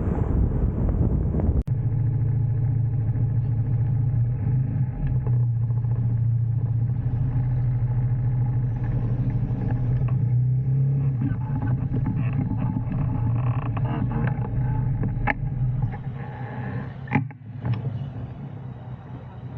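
Motorcycle engine running steadily at low revs, a deep even hum. For the first couple of seconds, wind buffeting the microphone covers it, then the wind cuts off suddenly.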